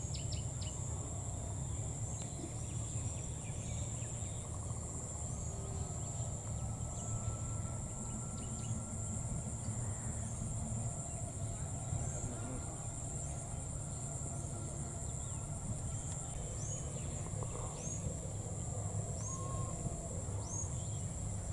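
Outdoor ambience: a steady high-pitched insect trill runs throughout, over a low rumble. Short high chirps repeat every second or two.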